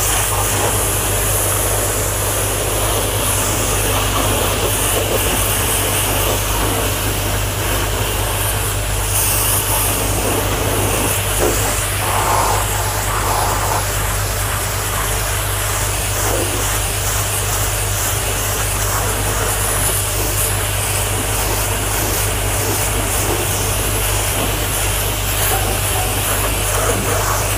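Electric pressure washer running steadily: a constant motor hum under the hiss of the high-pressure water jet on the car's bodywork, rinsing shampoo foam off in a touchless wash.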